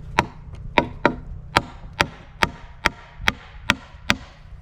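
Hammer driving a nail into a wooden board, about ten steady blows at two or three a second.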